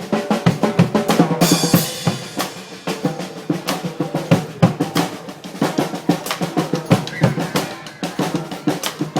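Marching band drum section playing a fast, busy beat on snare and bass drums, with a bright crash about a second and a half in.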